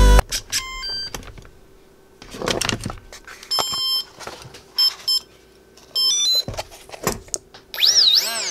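Short electronic beep tones in several small groups from the RC boat's speed controller, sounding through its motor as power is connected, with clicks from handling the plastic hull. Near the end the motor spins up and down in a wavering whine that rises and falls.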